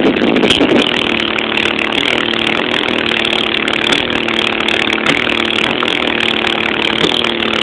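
Car subwoofers in a closed cabin (four Pioneer 12-inch competition subs) playing a held bass note, heard as a loud, steady, distorted buzz; bass-heavy music gives way to the held note about a second in.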